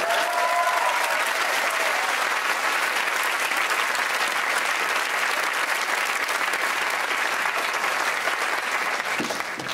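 Studio audience applauding steadily, the clapping easing off at the very end.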